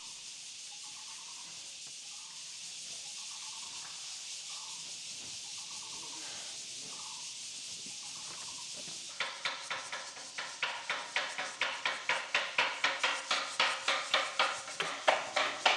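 A steady high insect drone with faint repeated chirps. About nine seconds in, regular scraping strokes begin, about three a second and growing louder: a broom sweeping the floor.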